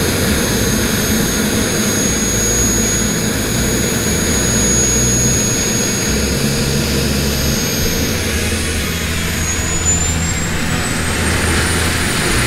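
Radio-controlled AJ Slick aerobatic model plane flying and coming in to land, its motor and propeller giving a steady high whine that rises in pitch for the last few seconds, over a low rumble.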